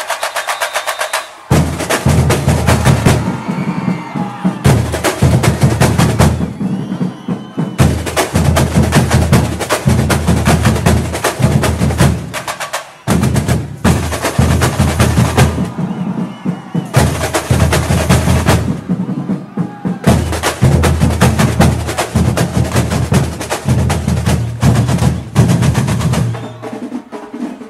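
Samba school bateria (percussion section) playing a samba rhythm: deep bass drums under dense, fast snare and small-drum strokes. The bass drums drop out briefly several times, leaving only the higher drums.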